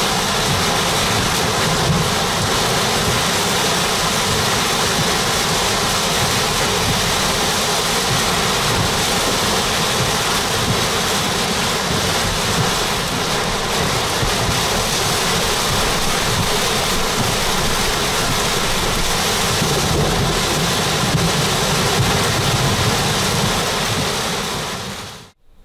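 Heavy wind-driven rain and hail pelting a vehicle's roof and windshield, heard from inside the car as a loud, dense, unbroken roar with a low rumble underneath. It fades out near the end.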